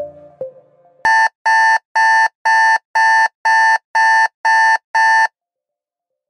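Countdown timer alarm: nine loud, identical electronic beeps, about two a second, each a short steady tone, marking that time is up. Background music fades out just before the beeps start.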